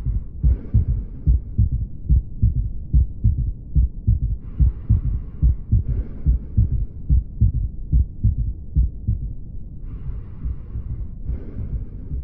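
Heartbeat heard through a stethoscope: a quick, even run of low thuds, the paired heart sounds. A soft rushing hiss comes in pairs three times, about every five seconds, like breaths heard through the chest piece.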